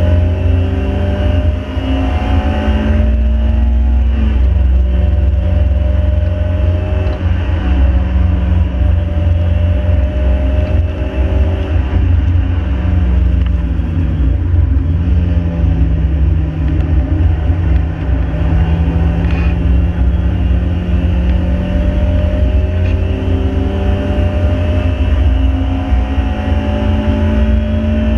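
Ford 1.7 Puma four-cylinder engine in a Mk5 Fiesta pulling hard on track, with a heavy low road and wind rumble underneath. Its pitch climbs slowly, drops at a gear change about four seconds in, sags and dips sharply around fifteen seconds, then climbs again.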